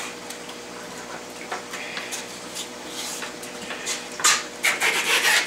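Frozen plastic-bagged food packs and styrofoam being handled inside a foam shipping cooler: small scattered clicks and rustles, then louder scraping and rustling for the last second or so as a pack is pulled out.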